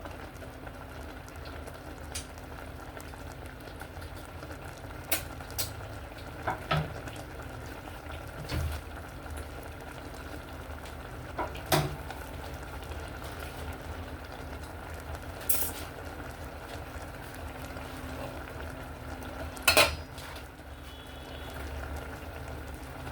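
Pot of okra soup simmering with a steady bubbling, while a utensil clinks and knocks against the pot now and then, with a quick double clink near the end.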